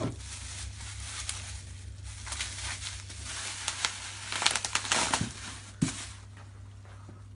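Plastic bubble wrap crinkling and rustling as it is pulled off a scabbard, with many small crackles, loudest about four to five seconds in, and a sharp knock near six seconds. A steady low hum lies under it.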